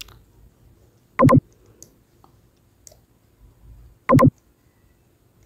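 Computer mouse button clicked in quick pairs: a sharp double click about a second in and another about four seconds in.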